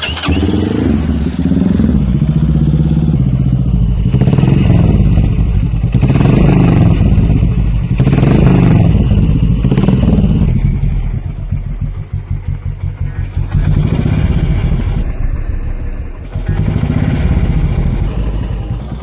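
Kawasaki Ninja 250's parallel-twin engine running through an SC Project aftermarket exhaust, revved in several swells about two seconds apart, then settling back to a lower, steadier note about ten seconds in.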